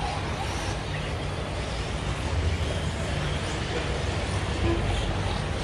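Radio-controlled race cars running around the track: a steady hum and noise of their motors.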